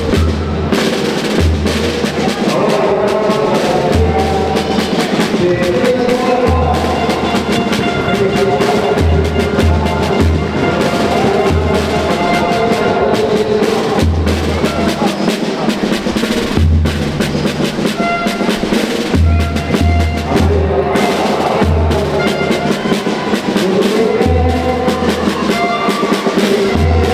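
A children's rhythm band playing a march: snare and bass drums keep a steady beat under a melody on bell lyres, with deep bass notes recurring.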